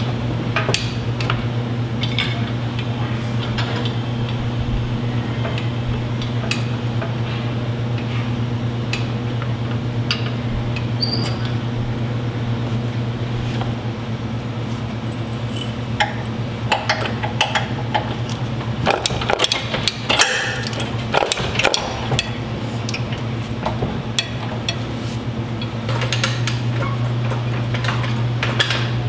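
Scattered metal clinks, taps and knocks of tools and parts during an engine install, busiest in the middle, over a steady low hum.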